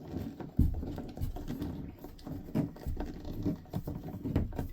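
Irregular small clicks, scrapes and knocks of a hand screwdriver working at a stubborn screw on an RV toilet's water valve.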